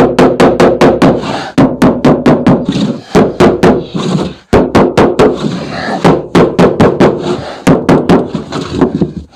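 A mallet hammering a wooden block against a rigid PIR insulation board in quick runs of blows, about five a second, with short pauses between runs. The board is being driven into a snug fit between the rafters past friction on metal fixings.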